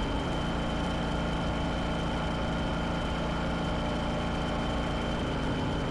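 Motorcycle engine running steadily at cruising speed, heard from the bike itself, with a thin steady high whine over the engine sound.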